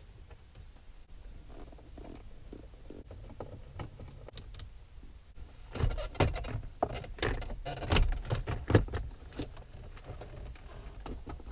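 Plastic dash fascia around the head unit being worked loose and pulled out of the dash: scattered light clicks, then a run of sharp plastic clicks and knocks through the middle few seconds as it comes free.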